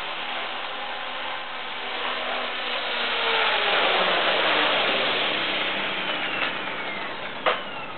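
Esky Honey Bee King 2 electric RC helicopter's motor and rotors whirring, growing louder about three seconds in; after it sets down on the floor the pitch slides downward as the rotors spin down. A sharp click near the end.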